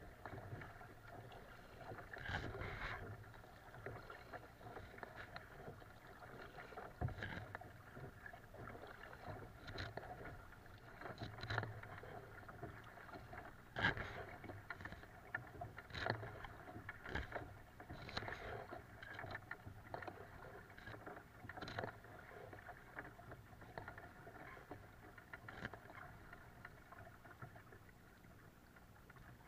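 Lake water slapping and splashing against the bow of a moving kayak in irregular strikes every second or two, over a steady hum.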